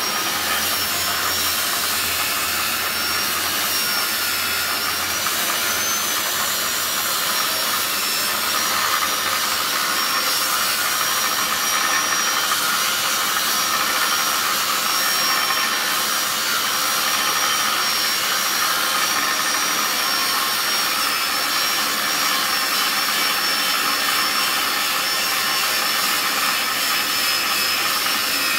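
Evolution electric demo saw running with a 7-inch abrasive disc cutting through a steel axle: a steady high whine from the spinning disc over dense grinding noise, the pitch wavering slightly as the cut loads it.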